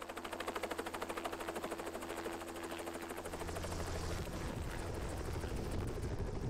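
Helicopter rotor blades thudding in a fast, even rhythm. About three seconds in, a heavier low rumble builds under the blade beat.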